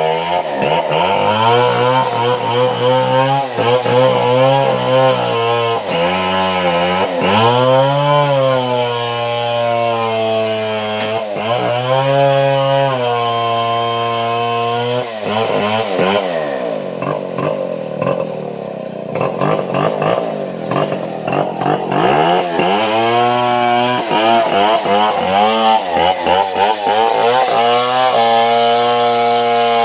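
Petrol chainsaw cutting large timber, its engine pitch rising and dipping over and over as it revs and bogs under load. About halfway through it drops lower and runs unevenly for several seconds, then revs up again.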